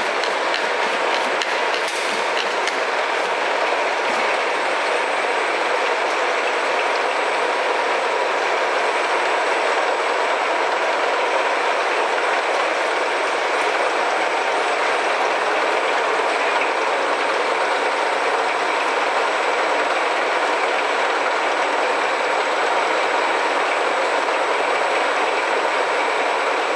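Bottling line running: a double-sided labeling machine and chain conveyors carrying plastic water bottles, a steady dense mechanical clatter with a thin steady whine.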